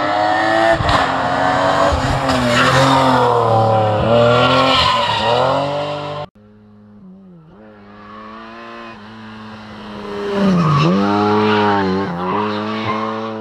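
Rally car engines at high revs, rising and falling through gear changes. The sound cuts off suddenly about six seconds in; then another rally car is heard approaching, getting louder, and passing at full throttle about ten seconds in.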